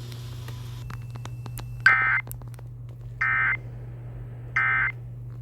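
Three short bursts of warbling SAME digital data tones, the Emergency Alert System end-of-message code that closes a NOAA Weather Radio warning. Each burst lasts about a third of a second, about a second apart, over a steady low hum.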